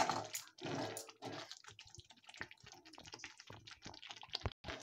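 Steel spoon stirring thick yogurt gravy in a metal kadhai: wet squelching and irregular clicks of the spoon, busiest in the first second or so, then scattered.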